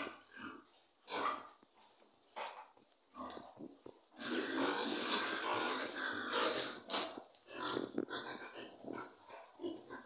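A group of young piglets, about two and a half months old, grunting: short separate grunts for the first few seconds, a louder continuous stretch of pig noise from about four to seven seconds in, then scattered grunts again.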